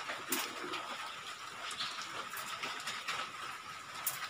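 A zippered fabric lens case being handled and its zipper worked: a few sharp small clicks and a brief rustle over a steady background hiss with a faint high hum.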